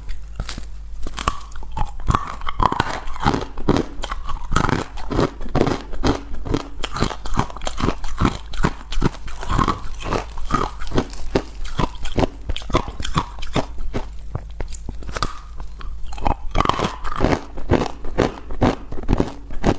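Hard, frosted ice bitten and chewed close to a clip-on microphone: a dense run of sharp crunches and cracks, several a second, as the pieces break and are ground between the teeth.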